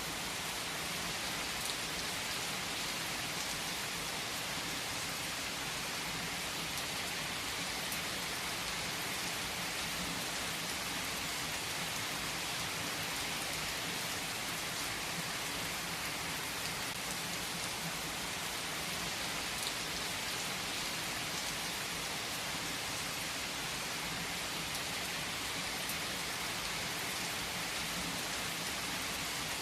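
Steady rain falling, with a few faint crackles from a fireplace now and then.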